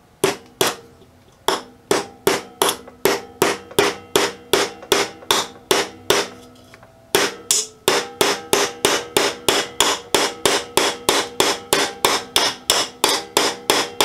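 Small hammer head of a 14-in-1 multitool tapping a long finish nail into a wooden block: dozens of quick, light strikes, about two a second, then about three a second after a short pause halfway, each with a brief metallic ring. The hammer has little weight, so the nail goes in slowly over many blows.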